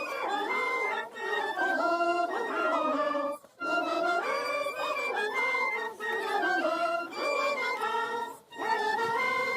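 A congregation singing a hymn together, in long phrases with short breathing pauses between them.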